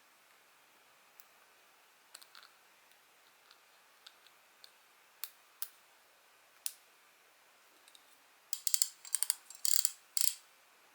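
Small sharp clicks from the parts of a Daiwa Regal fishing reel being handled, spaced out at first, then a dense run of clicking and rattling near the end.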